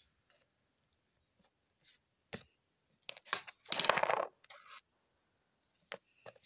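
Small makeup items being handled and picked up: scattered light clicks and knocks, with a louder rustle of handling about four seconds in.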